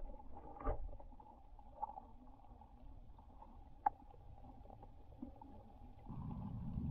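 Muffled underwater sound heard through a submerged camera in spring water: a low rumble with a few faint clicks and taps. About six seconds in, the low rumble grows louder.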